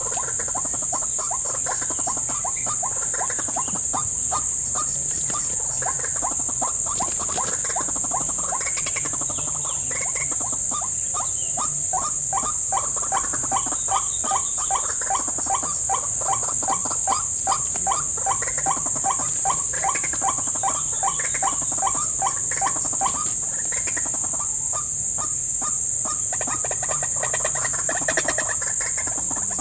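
White-breasted waterhen calls: a long, fast run of repeated short notes, about three or four a second, through the middle, with scattered calls before and after. A steady high drone of insects runs underneath.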